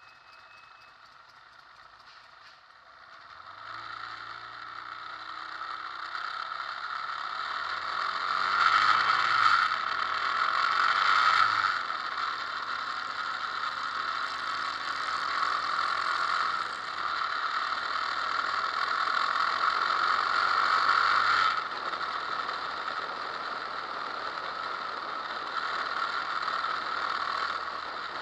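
Motorcycle engine and road noise heard through an action camera mounted on the moving bike, a steady mechanical din. It grows louder about three and a half seconds in as the bike pulls away, then swells and eases with the throttle.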